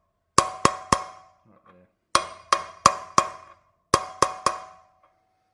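Hammer blows on a 32 mm steel socket driving a new wheel bearing into a KTM 350 EXC rear hub: three quick bursts of three, four and three sharp metallic strikes, each followed by a ringing note. The ringing lasts longest after the last blows, as the bearing reaches the bottom of its bore.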